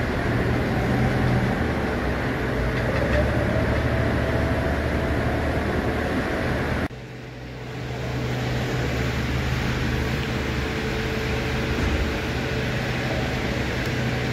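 Steady mechanical hum and noise with a low drone, dropping suddenly about seven seconds in and coming back up over the next second.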